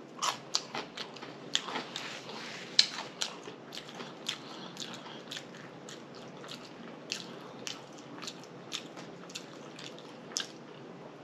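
A person chewing food, with lip smacking: many short, irregular wet mouth clicks.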